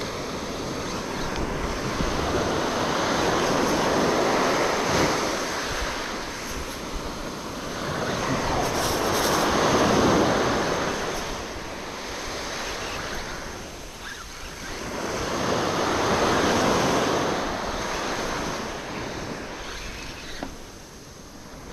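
Small surf breaking on a sandy beach and washing up the shore, swelling and fading in waves about every six seconds.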